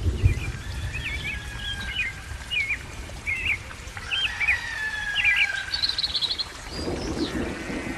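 Small songbirds chirping in quick, short repeated calls over a long thin whistled note. A low rushing sound comes in near the end.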